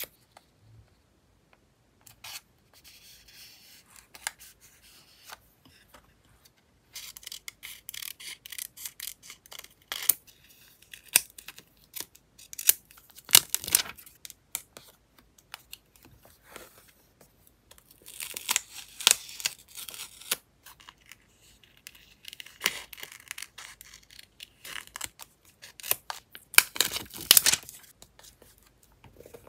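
Paper and stickers handled on a journal page: peeling, rustling and crackling with small sharp clicks as pieces are placed with tweezers and pressed down by hand. It comes in several spells, the loudest near the end.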